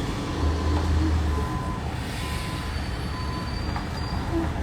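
Steady low rumble of idling vehicle engines over street traffic noise.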